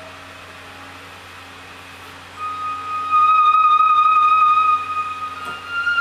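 Yamaha CS-80 synthesizer sounding a single high, sustained lead note that comes in about two and a half seconds in after a quiet stretch, then steps up in pitch near the end.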